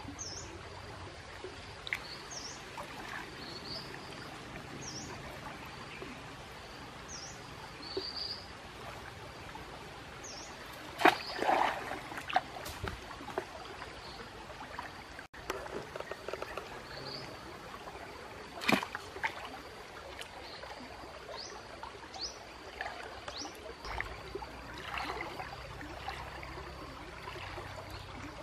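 Outdoor stream ambience with a bird's short high chirps repeating every second or two. A few splashes and knocks from wading and from a wooden stick in shallow water break in, the loudest about eleven seconds in and another near nineteen seconds.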